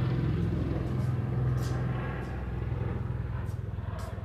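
A steady low mechanical hum, with a few faint clicks, slowly fading.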